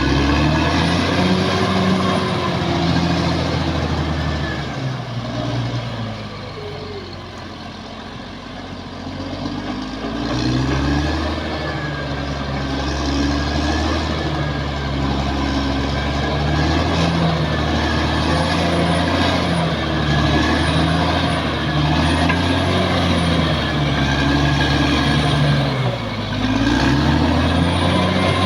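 Caterpillar D6R XL bulldozer's diesel engine working under load, its pitch rising and falling. It eases off about a fifth of the way through, then picks back up and runs on fairly steadily with a slow wavering.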